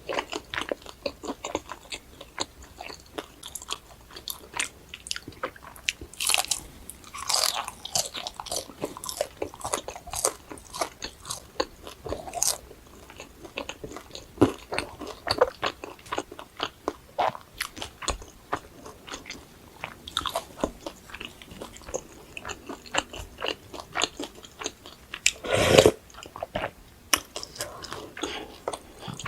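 Close-miked eating: irregular biting, crunching and wet chewing of food, dense with short crackles and mouth clicks, with one louder burst near the end.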